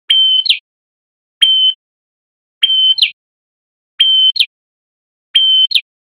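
Male red-headed prenjak (prenjak kepala merah) singing loudly and repeatedly: five short phrases, about one every second and a half. Each phrase is a brief steady whistle that ends in a quick falling note.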